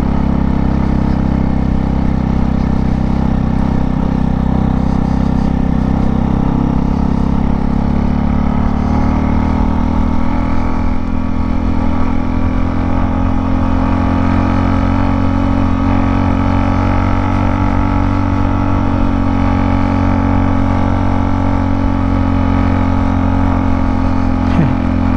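Motorcycle engine pulling steadily in second gear under load up a steep climb.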